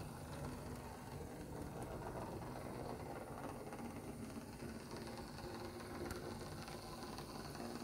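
Lima OO gauge model GWR diesel railcar running slowly on its track: a steady hum and whir from its small electric motor and running gear.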